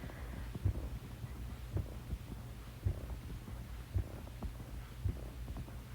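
Steady low hum with a soft, regular thump about once a second.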